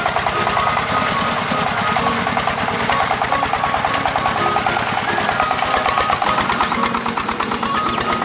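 Engine of a se kang, a Vietnamese two-wheel tractor, running steadily with a rapid, even pulse of knocks.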